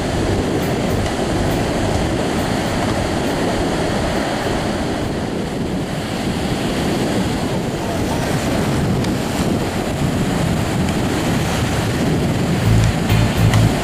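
Ocean surf breaking and washing through the shallows, a steady rushing, with wind buffeting the microphone.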